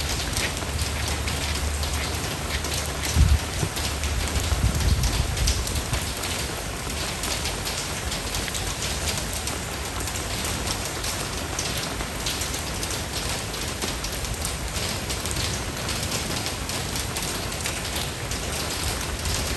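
Steady rain falling, with many separate drop hits heard through the hiss. A low rumble swells briefly about three to five seconds in.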